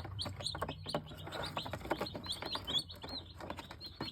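Cornish Cross broiler chicks peeping, many short high chirps a second from several chicks at once, with light clicks.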